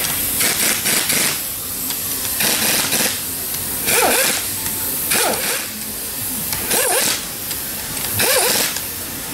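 Pneumatic impact wrench running down the bolts of a gearbox cover in about ten short bursts, one bolt after another. The cover is being walked down evenly so the O-ring seal is not damaged.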